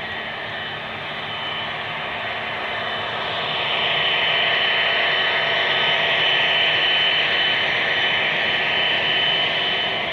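HO scale model container train running past on the track: a steady whirring with a thin high whine, growing louder about four seconds in as the locomotives and well cars pass close by.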